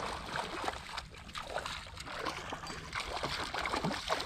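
Water splashing and trickling at the surface, a run of small splashes and drips.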